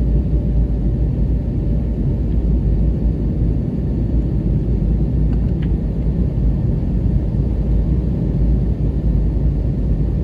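Airliner cabin noise shortly after takeoff: a steady low rumble of the jet engines and rushing air.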